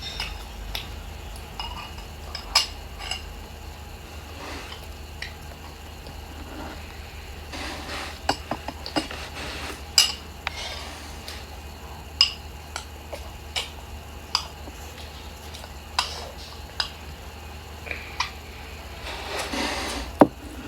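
Eating utensils clinking against dishes during a meal: a dozen or so sharp clinks at irregular intervals, with a short scraping stretch near the end.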